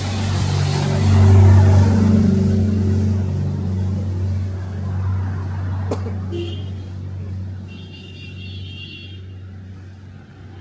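A motor vehicle passing close by on a street: a low engine hum that is loudest about a second and a half in, then slowly fades away. A sharp click comes about six seconds in.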